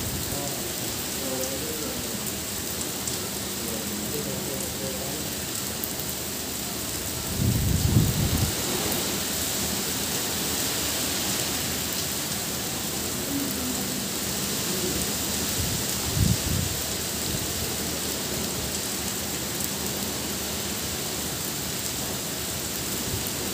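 Heavy rain falling as a steady hiss, with two short low rumbles about eight seconds in and again about sixteen seconds in.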